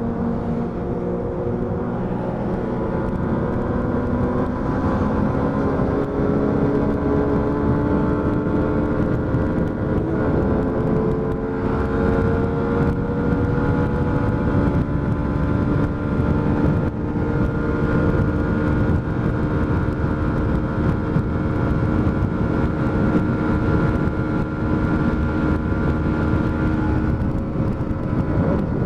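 Yamaha MT-125's single-cylinder four-stroke engine running under way at cruising speed, its pitch creeping up over the first dozen seconds as the bike gathers speed and then holding steady, with a dense low rush of wind noise on the microphone.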